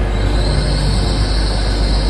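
TransPennine Express Class 802 bi-mode train pulling away along the platform: a steady low rumble of the running train, with a hiss that rises and holds from about a quarter second in.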